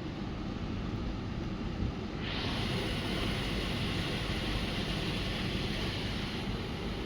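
Air conditioner with a 380-volt three-phase scroll compressor running with a steady low hum. A hiss comes in about two seconds in and fades near the end.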